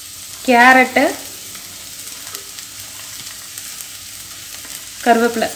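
Diced vegetables and onions sizzling in hot oil in a pressure cooker, a steady sizzle with faint crackles.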